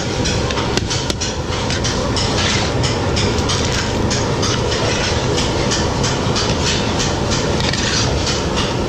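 Machinery running with a steady, loud clatter of rapid irregular clicks and knocks.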